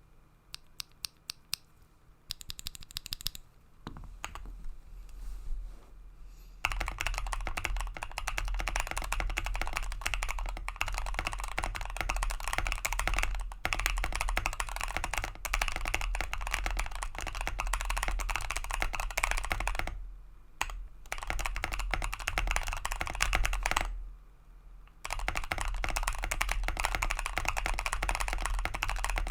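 Bakeneko 65 custom mechanical keyboard with lubed Gazzew Boba LT linear switches, PE foam and a tape mod on the PCB, being typed on: a few single keystrokes and a short burst at first, then fast continuous typing from about seven seconds in, with two brief pauses.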